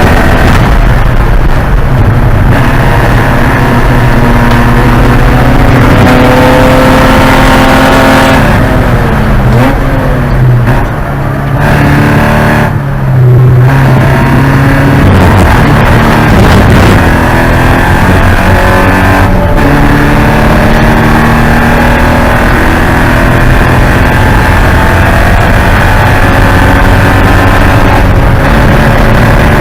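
Porsche 944 Spec race car's four-cylinder engine running hard under load, held at high revs. About ten seconds in the pitch falls through several steps as it brakes and downshifts, with a brief lift near thirteen seconds, then it climbs again under throttle.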